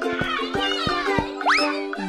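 Bouncy children's cartoon background music with plucked notes, overlaid by cartoon sound effects: a wavering falling glide, then a quick rising glide about one and a half seconds in.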